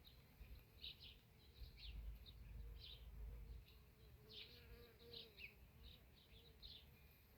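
Faint garden ambience: a bee buzzing nearby for a couple of seconds in the middle, with birds giving short, high chirps in the background.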